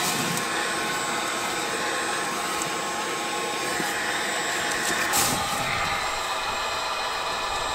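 Corded heat gun running steadily, its fan blowing hot air onto adhesive-backed panels to warm the glue so it sticks in the cold. There is a light knock about five seconds in.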